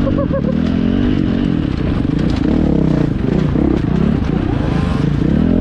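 2017 Husqvarna FX 450 four-stroke single-cylinder dirt bike engine running under load, the revs rising and falling as it is ridden over a rough rocky trail, with scattered clicks and clatter.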